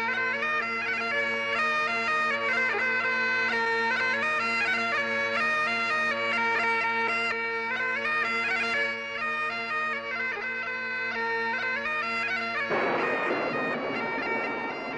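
Bagpipes playing a tune over their steady drones. Near the end the drones cut off suddenly and a rough, noisy sound takes over.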